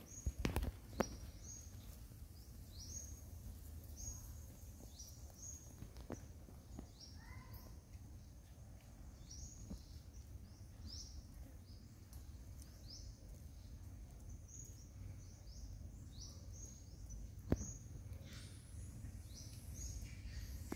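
Outdoor ambience: a short, high, rising chirp repeated roughly once a second over a low steady rumble. A few sharp clicks break in, the loudest near the end.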